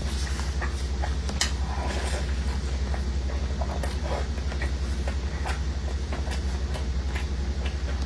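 Close-up chewing and mouth sounds of someone eating, scattered wet clicks and crackles, over a steady low hum.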